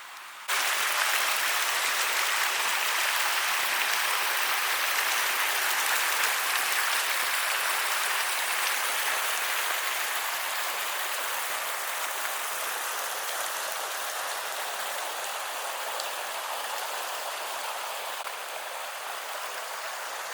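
Steady rush of flowing river water, an even hiss without tones that starts abruptly about half a second in and eases slightly toward the end.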